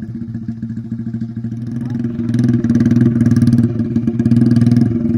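Hero Splendor motorcycle's single-cylinder four-stroke engine running, getting louder and pulling harder about two seconds in.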